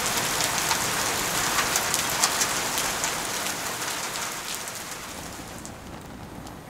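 Heavy rain falling through pine trees and palm fronds: an even hiss with many sharp drop hits, fading down over the last few seconds.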